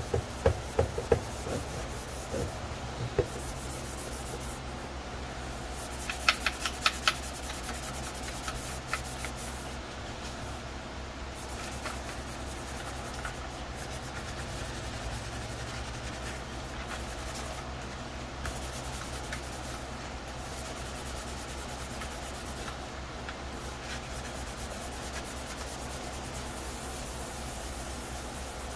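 Hand sanding of a plastic helmet shell with a very fine abrasive on a foam sanding pad, scuffing the surface for primer: a steady scratchy rubbing. There are a few sharp knocks in the first three seconds and a quick run of ticks about six seconds in.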